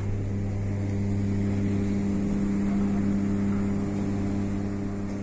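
Steady industrial hum: a low, unchanging drone with a few even higher overtones.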